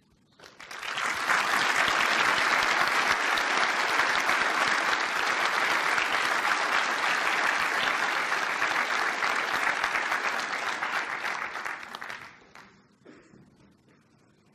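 Audience applauding: the clapping starts about half a second in, holds steady for about eleven seconds, then dies away near the end.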